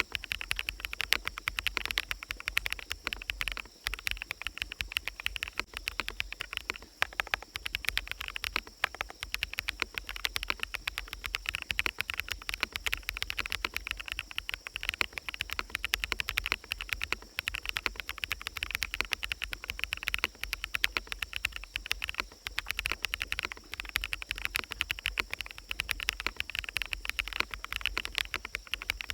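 Continuous fast typing on a mechanical keyboard with fully lubed BSUN Sunset Yellow switches, a dense run of key clacks without pause, over a steady forest ambience.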